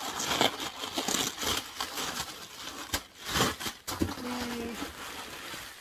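White tissue paper rustling and crinkling as it is torn at the sticker and pulled open by hand, with a sharp click about three seconds in.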